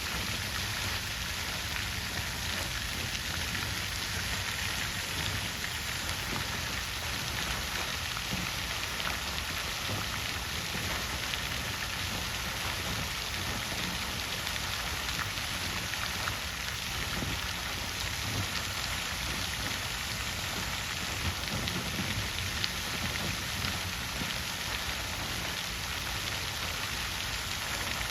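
Water fountain running: a steady, even splash and patter of falling water.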